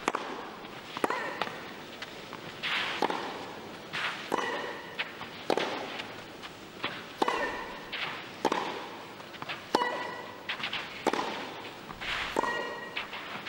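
Tennis rally: a ball struck back and forth by rackets, sharp hits about every second to second and a half, with a player's short grunt on many of the shots and a brief echo after each hit.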